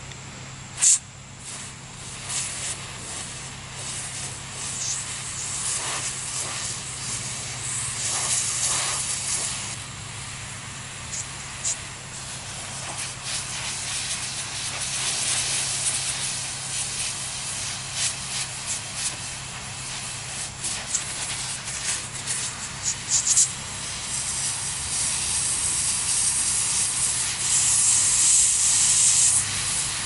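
Aerosol can of electronics freeze spray hissing through its extension straw in uneven spurts, strongest near the end, as the can is emptied into a plastic combination padlock to chill it. A few sharp clicks, the loudest about a second in.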